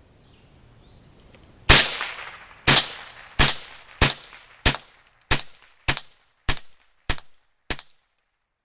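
Mossberg 715T .22 LR semi-automatic rifle fired ten times in quick succession, emptying its 10-round magazine, each shot with a short echoing tail. The shots speed up from about one a second to nearly two a second, and the string cycles without a jam.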